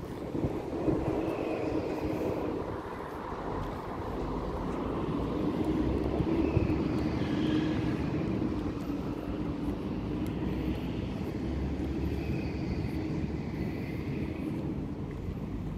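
A steady engine drone with a low rumble, swelling slightly towards the middle and holding on to the end.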